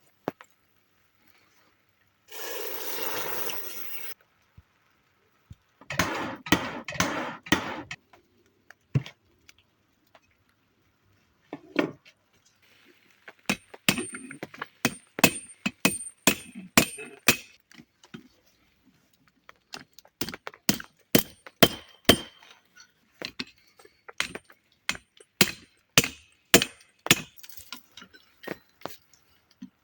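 Hammer striking metal while forging the iron parts of a cant hook: a few separate groups of blows, then from about halfway a long run of sharp, ringing strikes about two a second. Near the start a scraping noise lasts about two seconds.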